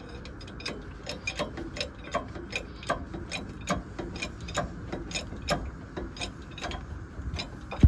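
Red hydraulic bottle jack being pumped with a steel bar to lift a truck, each stroke clicking, about two to three clicks a second in an uneven rhythm.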